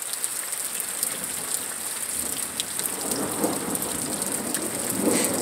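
Steady rain falling in a thunderstorm, with a steady high hiss over it. From about three seconds in, a rumble of thunder builds and swells near the end.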